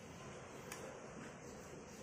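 Faint eating sounds as a man takes a bite and chews, with one sharp click about two-thirds of a second in.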